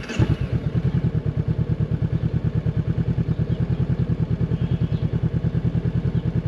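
Honda NX500's parallel-twin engine, fitted with an aftermarket Arrow Race Pro slip-on exhaust, cranks briefly on the starter and catches at the start. It then idles with an even, rapid pulsing beat from the exhaust.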